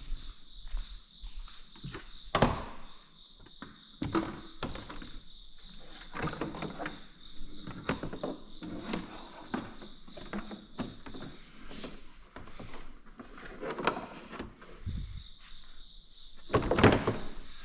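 An ATV's plastic body cover being refitted by hand: a series of irregular knocks, clicks and rattles, with a louder thunk about two seconds in and another near the end.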